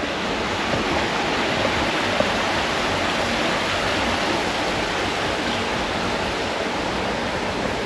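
Steady rush of water from a stream and waterfall running through a narrow sandstone gorge.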